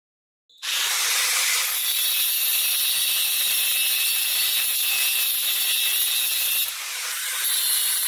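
Angle grinder with a thin cutting disc cutting through the steel output shaft of a 12 V wiper motor, starting suddenly about half a second in and running steadily, with a brief dip in level near the end.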